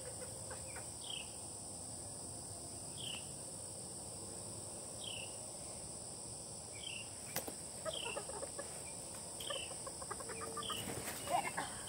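Quiet outdoor backdrop: a steady high insect drone with a bird's short high chirp every second or two. A sharp click about seven seconds in, then light knocks and rustling toward the end.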